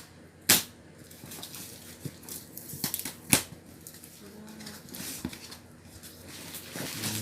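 Gift wrapping paper being torn open and crinkled, with scattered crackles and two sharp snaps, about half a second in and a little after three seconds.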